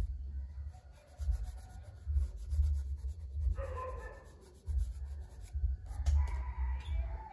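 Charcoal being rubbed and stroked across drawing paper, in repeated strokes with low bumps as the hand presses on the sheet and board.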